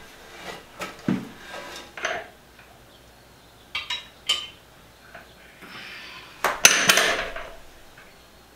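Kohler toilet's porcelain tank being set onto the bowl and positioned: scattered sharp clinks and knocks of porcelain and mounting hardware, with a louder clatter of several strikes about two-thirds of the way through.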